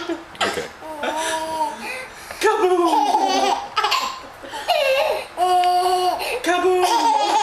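A seven-month-old baby laughing in about five high-pitched bursts with short pauses between, one drawn out for about a second past the middle.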